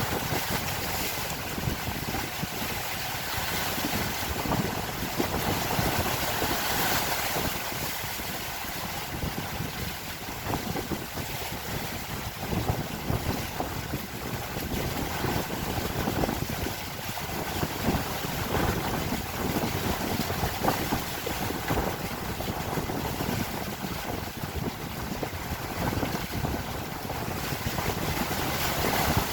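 Strong wind buffeting the microphone: a steady rushing noise with gusty low rumbling.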